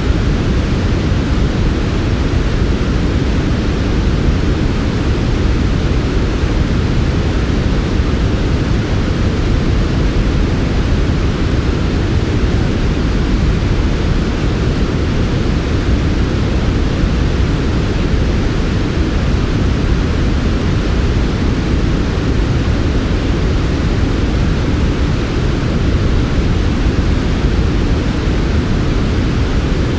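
Steady, unchanging white-noise track, an even hiss without breaks or events, weighted towards the low end with a softer, airier hiss above.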